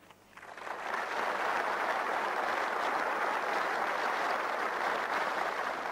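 Audience applauding, rising within the first second to a steady clapping that begins to die away near the end.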